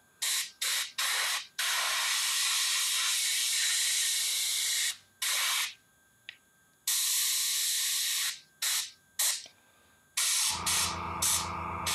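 Badger Sotar 20/20 airbrush spraying paint in a series of bursts of hiss, some short, the longest about three seconds. About ten seconds in, a low steady motor hum starts up under the hiss.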